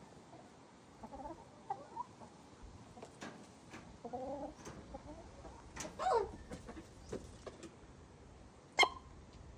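A hen clucking softly, with a louder call falling in pitch about six seconds in and one short, sharp sneeze near the end.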